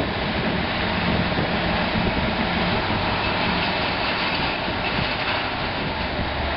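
Pile-driving machinery running steadily: a dense mechanical noise with a low engine hum, without separate hammer blows.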